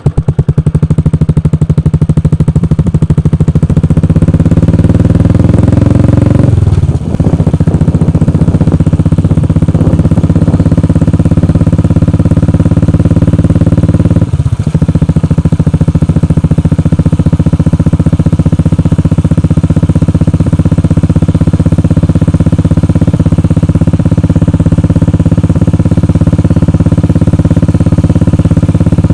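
Royal Enfield Bullet single-cylinder engine idling through a Globe Cobra aftermarket silencer, with a steady exhaust beat. It is revved once, rising over a few seconds, then drops sharply back to idle about seven seconds in. A brief dip in the beat follows around fourteen seconds in.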